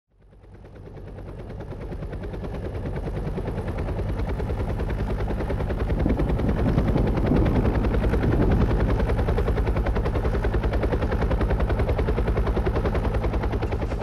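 Helicopter rotor chopping in a rapid, even beat, fading in from silence over the first few seconds and then holding steady.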